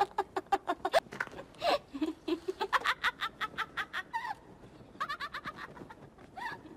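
A girl laughing: quick, high-pitched cackling laughter in several bouts with short breaths and pauses between them.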